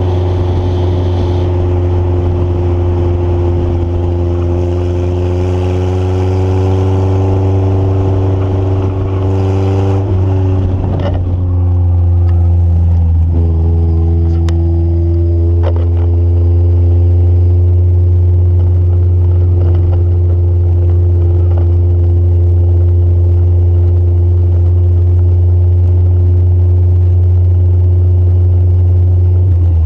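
Honda Civic EF sedan's four-cylinder engine running steadily while driving, over a loud low road rumble; the engine note rises and falls gently and changes pitch about ten seconds in.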